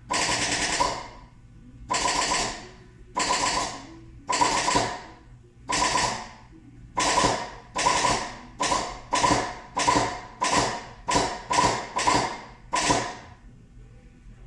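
Rebuilt starter on a John Deere 6115M tractor being bumped by jumping across its terminals, giving about sixteen short bursts of mechanical noise that come shorter and quicker toward the end. The engine does not start; the owner wonders whether the starter gear is trying to engage the flywheel but is slightly out of position.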